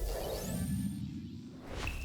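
Designed sound effects: a whoosh over a low rumble with a thin tone that rises and then holds high, then a sharp hit about 1.8 seconds in that leaves a single high ringing tone.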